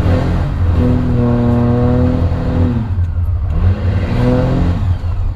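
12-valve Cummins inline-six diesel running through a straight-piped exhaust stack, heard from inside the cab as a steady low drone. The engine pitch climbs and holds about a second in, drops back near three seconds, then climbs and falls again near the end as the truck accelerates and lets off.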